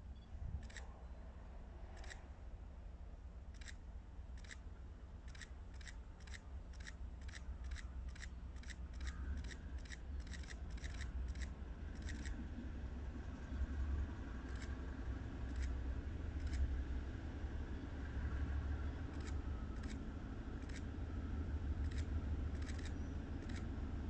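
Approaching freight train hauled by a GE C36-7i diesel-electric locomotive: a low rumble that grows steadily louder, with a faint high whine joining about nine seconds in. A run of sharp clicks sounds over it, several a second in the first half and sparser later.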